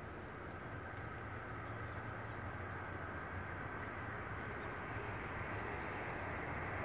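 Steady low rumble growing slowly louder as a light rail train of Siemens U2A cars approaches the crossing.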